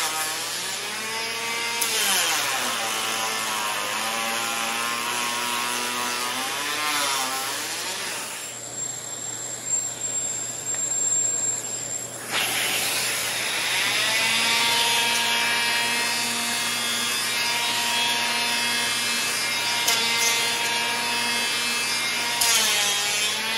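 Cordless 12-volt hand planer running and taking passes on wood. The motor's whine dips in pitch as the blades bite and recovers as they free up. The whine drops out for about four seconds roughly a third of the way in, then the planer runs again at a steady pitch.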